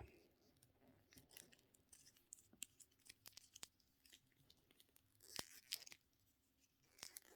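Near silence: room tone with faint scattered clicks, a few slightly louder ones about five and a half seconds in.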